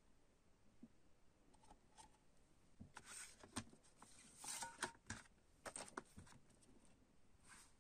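Hands working a plastic CD jewel case: a run of sharp clicks and short scraping rustles from about three seconds in, as the cover booklet is slid out from under the front cover's tabs, and one more soft rustle near the end.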